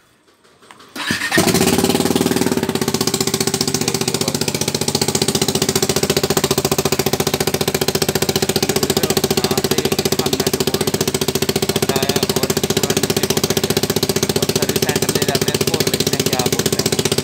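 A Bajaj Dominar 400's single-cylinder engine starts about a second in, then idles steadily with rapid, even pulses from an exhaust leak at the front exhaust joint, where two bolts have come loose.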